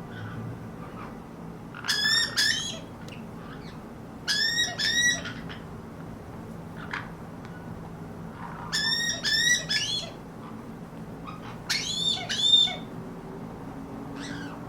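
White-bellied caique calling: four bursts of two to four short, arched calls each, a few seconds apart.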